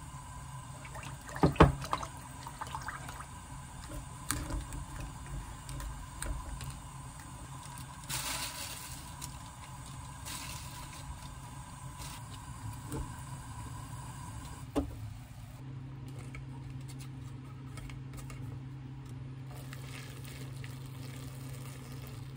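Kitchen cooking sounds from a pot of spicy fish cake broth: liquid being stirred and handled, with a few sharp knocks of a utensil on the pot, the loudest about a second and a half in, over a steady low hum.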